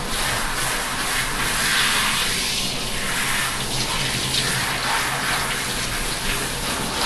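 Handheld shower sprayer running steadily, water spraying over a dog's wet coat and splashing into a bathtub.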